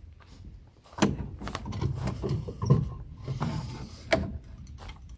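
Irregular knocks and scraping of wooden boards being handled and fitted, starting about a second in.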